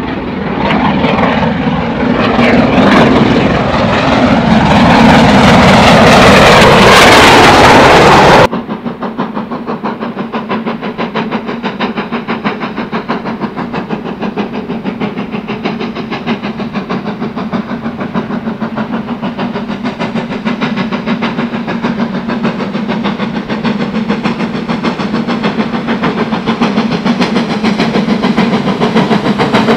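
A loud, even rushing noise that cuts off suddenly about eight seconds in. Then a steam locomotive hauling a passenger train, working hard with rapid, even exhaust beats that grow steadily louder as it approaches.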